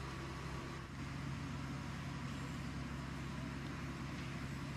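A steady low engine hum under an even hiss, with a brief dip about a second in.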